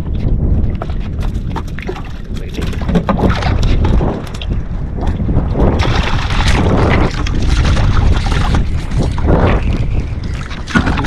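Wind rumbling on the microphone, with clothing rustle and many scattered knocks and clatters as caught mackerel on a sabiki rig are swung in and unhooked.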